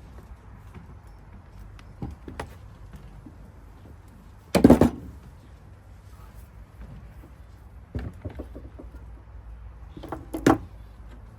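Tools knocking and clanking on metal while the rear wheel of an electric scooter is tightened up. The knocks are scattered, the loudest a short clatter about four and a half seconds in and another near the end.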